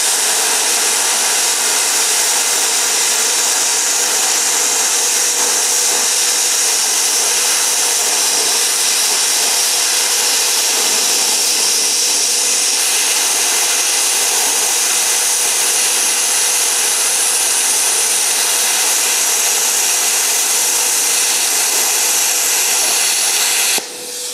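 Longevity ForceCut 62i plasma cutter cutting through 1-inch steel plate: a loud, steady hiss with a constant tone running through it. The level dips briefly near the end.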